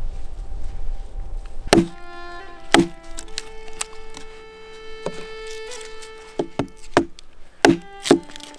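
Small hand axe striking dry deadwood to split off kindling shavings: about seven sharp knocks, the first about two seconds in. Background music with long held notes plays under them.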